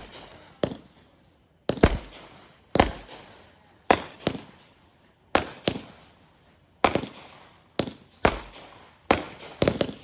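Consumer fireworks going off in a string of about a dozen sharp bangs roughly a second apart, some in quick pairs, each trailing away in an echo.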